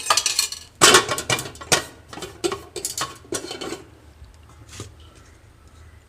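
Dishes and cutlery clattering: a quick run of clinks and knocks for about four seconds, then a few faint taps.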